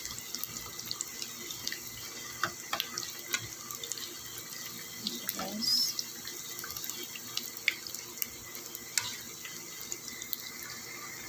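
Batter-coated hard-boiled chicken eggs deep-frying in hot oil: a steady sizzle with many small scattered pops.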